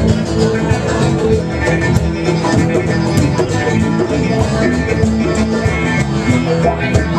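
A live band playing an instrumental passage in a bluegrass-country style, led by guitar and other plucked strings.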